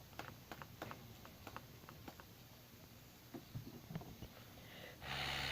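Faint, irregular clicks and taps of a fidget spinner being handled, then a short breathy burst of noise near the end.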